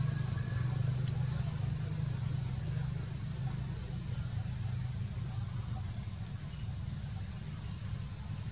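Steady forest ambience: a continuous high-pitched insect drone over a low steady hum.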